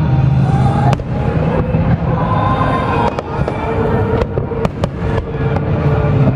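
Aerial fireworks bursting in a dense barrage: a continuous rumble of booms, with several sharp bangs standing out. Music plays underneath.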